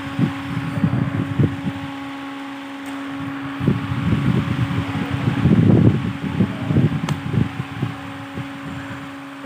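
Steady hum of a fan with uneven low rumbling, heaviest a little past the middle, and two sharp cracks of a badminton racket striking a shuttlecock, about four seconds apart.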